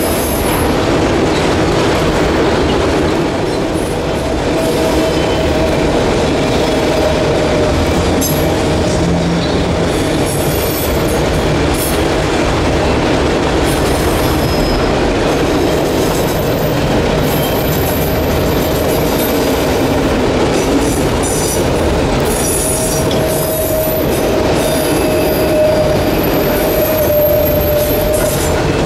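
Freight train of autorack cars rolling across a steel girder railway bridge overhead, a loud steady rumble of wheels on rail. A thin wheel squeal comes and goes, around five seconds in and again near the end.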